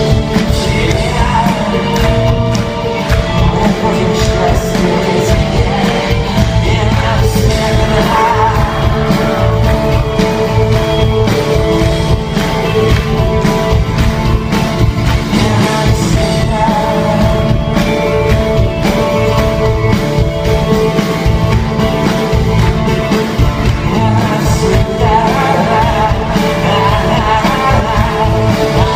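A rock band playing live with singing: drums, bass and guitars, loud and full without a break, with regular drum hits.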